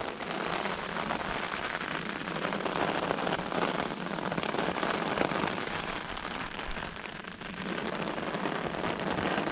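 Steady rain pattering on a large umbrella close overhead, a dense spatter of drops with no pause.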